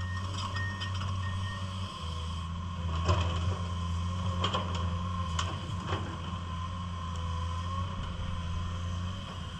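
Komatsu PC210 hydraulic excavator running, its diesel engine giving a steady low hum. Its travel alarm beeps a few times during the first second and a half, and about four sharp knocks or clanks come between three and six seconds in.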